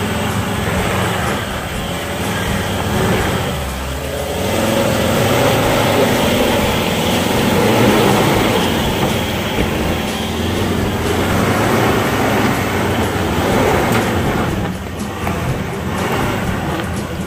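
Ford Everest 3.2 Titanium's five-cylinder diesel engine working under load as the SUV drives up a muddy off-road trail, louder as it passes close by around the middle.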